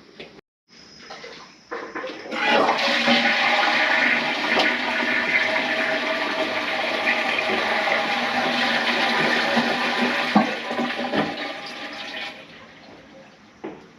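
Toilet flushing: a rush of water from the TOTO S517B tank into the bowl starts about two seconds in, runs steadily for about ten seconds, then drops away.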